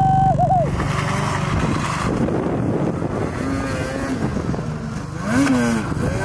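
Snowmobile engines revving hard in deep powder, the pitch climbing and falling again and again, with the loudest rise about five and a half seconds in.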